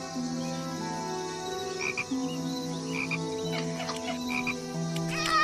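Film soundtrack: sustained background music with frogs croaking, short paired calls about once a second. Near the end, higher calls that rise and fall begin.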